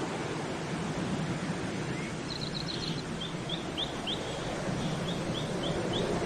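A bird calling a series of short, rising chirps, about three a second, starting about two seconds in, over a steady rushing noise.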